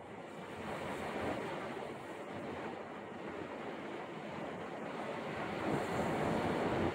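Steady rushing of wind and choppy river water, with wind blowing on the microphone.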